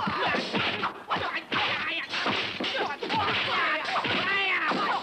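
Kung fu film fight sound effects: a rapid string of punch and kick whacks with swishes of limbs in a group fight.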